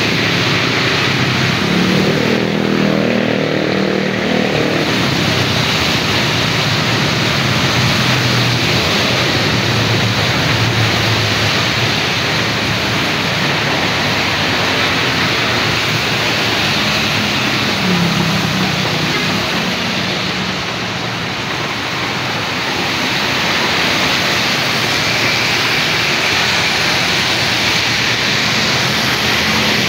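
Steady hiss of rain and of tyres on a wet road, with vehicles passing through the spray; an engine rises out of the hiss about two to four seconds in and again around eighteen seconds.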